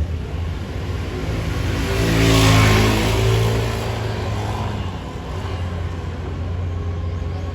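Road traffic: a motor vehicle's engine and tyre noise swells as it passes close, loudest about two and a half seconds in, then fades back into a steady low rumble.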